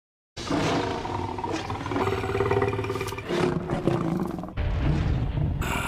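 Sharptooth the tyrannosaur, a cartoon dinosaur sound effect, roaring and growling in several drawn-out phrases. It cuts in abruptly about a third of a second in, with a deep rumble under the last part.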